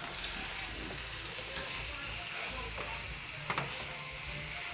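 Pepper taco filling sizzling in a frying pan as a spatula stirs and scoops it, a steady hiss with two short clicks of the spatula against the pan about three and a half seconds in.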